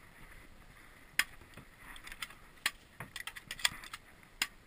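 Scattered sharp snaps of airsoft fire: a handful of single cracks, irregularly spaced about a second apart.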